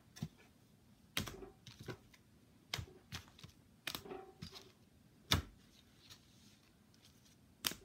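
Irregular sharp clicks and taps of trading cards and small collectibles being handled, moved and set down while sorting, the loudest a little past halfway.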